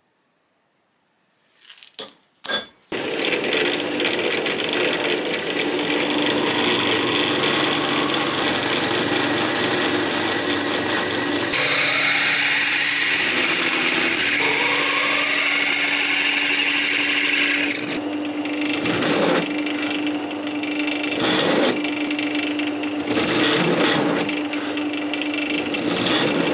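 A handheld electric power tool working on the metal of a racing expansion-chamber exhaust. It starts after a few clicks and runs steadily, turns harsher about halfway through, and dips several times near the end as it comes off and back onto the work.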